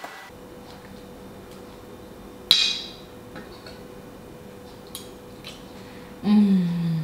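A metal fork clinks sharply against a plate about two and a half seconds in, followed by a few faint taps. Near the end a woman gives a long hummed 'mmm' of enjoyment, falling in pitch, while tasting the fish.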